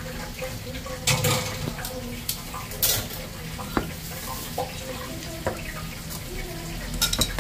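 Kitchen clatter: scattered knocks of dishes and utensils over steady background noise, with a knife cutting fried breaded chicken on a metal tray near the end.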